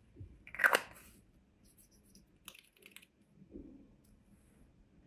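Small plastic paint pots handled on a table: a short scrape about half a second in, then a few light clicks and a soft knock.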